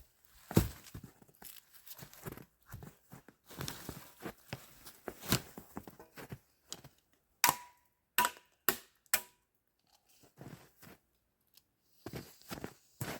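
Crackling, snapping and rustling of wood and brush being handled, then four sharp knocks in quick succession with a brief ring after each, and a few scattered faint clicks near the end.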